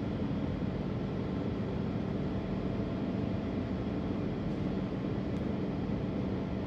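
Steady rumble with a constant low hum and hiss from a departing electric train: a BB 27300 locomotive and its VB2N double-deck coaches pulling out along the station tracks.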